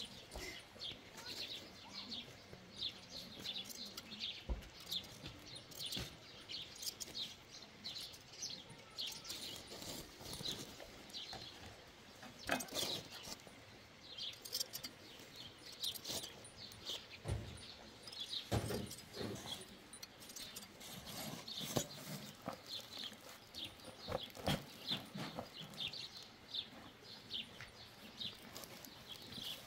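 Small birds chirping again and again, several short calls a second. A few sharp snips of hand shears cutting goat hair stand out now and then.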